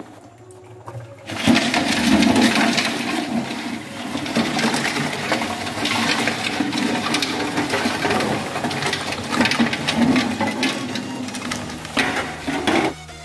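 Water pouring and splashing into a metal pot of live land crabs, a steady rush that starts suddenly about a second and a half in and stops just before the end.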